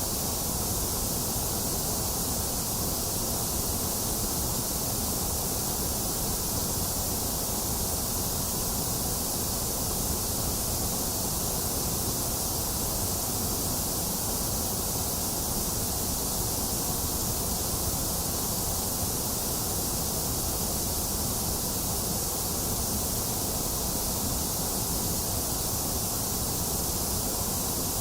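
Box fan running steadily, mixed with steady rain: a constant, even rushing hiss with no thunder and no sudden sounds.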